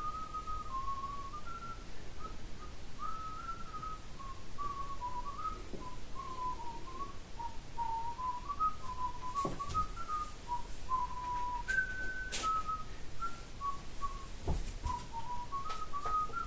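A person whistling a slow, wandering tune, one clear note after another, with a few faint clicks underneath.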